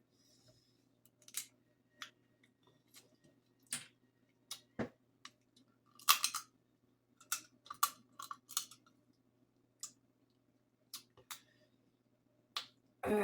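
Hard crab-leg shells being cracked and snapped apart by hand: irregular sharp cracks, with a quick cluster about six seconds in and another around eight seconds.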